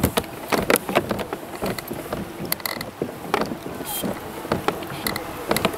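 Irregular mechanical clicking and knocking, several sharp ticks a second with uneven gaps.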